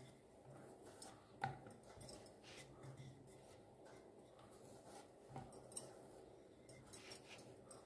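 Faint handling sounds of dough being rolled out with a wooden rolling pin on a board and pressed flat by hand: soft rubbing, with a short knock about a second and a half in and two more just after five seconds.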